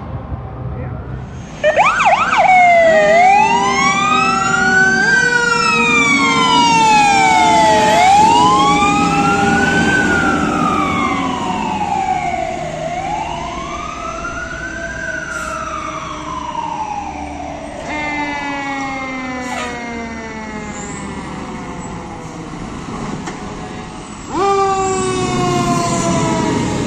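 Fire truck sirens: a loud wail rising and falling about every two and a half seconds, with other sirens overlapping it and a fast yelp cutting in briefly. About 24 seconds in, another siren starts loudly close by.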